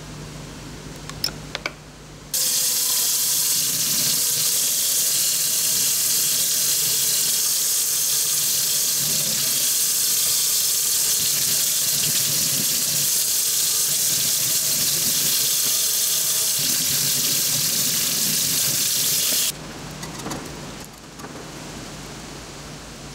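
Kitchen tap running steadily into a stainless steel sink, the water splashing over a small part held under it on a wire rack for rinsing. The water starts abruptly a couple of seconds in and stops abruptly a few seconds before the end, with quieter room noise and a few light clicks either side.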